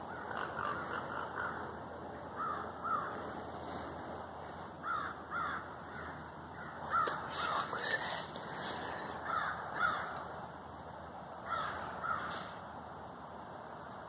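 Short hoarse caw-like animal calls, mostly in close pairs, repeated every second or two, that sound like a pig to the listener, from an unseen caller. The calls stop a couple of seconds before the end.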